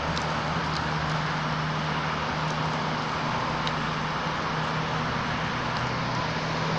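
Steady road traffic noise with a constant low engine hum underneath.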